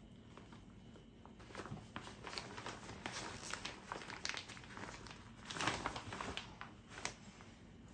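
Rustling and crinkling of a wipe rubbing a baby's hands, then of a coverall weaning bib being pulled off her, with the loudest rustle about five and a half seconds in.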